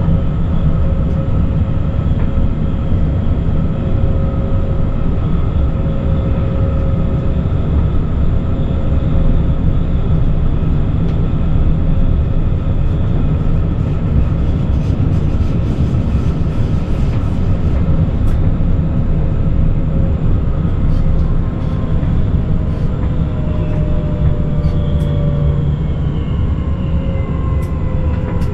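Forchbahn metre-gauge electric train running, heard from the driver's cab: a steady rumble of wheels on rails with the constant whine of the traction motors. In the last few seconds the whine falls in pitch as the train slows for its stop at the Esslingen terminus.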